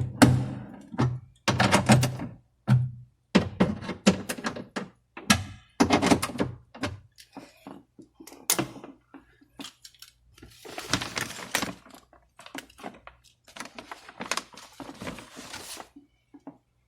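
Irregular clunks, clicks and rattles of hand work inside a car door, as the parts of the door lock mechanism are handled and fitted.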